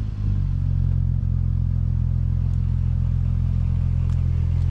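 Audi B5 S4's 2.7-litre twin-turbo V6 idling steadily, just after being started.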